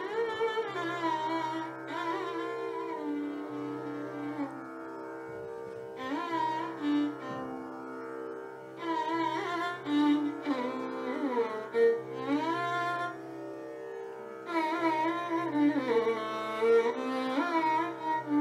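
Indian classical instrumental music: a string instrument playing a melody with sliding, gliding notes over a steady drone.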